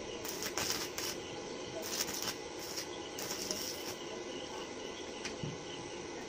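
Stick-welder arc crackling and sizzling in irregular spurts as a steel tube is welded onto a motorcycle exhaust silencer.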